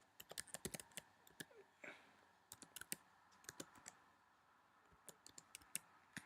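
Faint computer keyboard typing: short bursts of quick keystrokes with pauses between them.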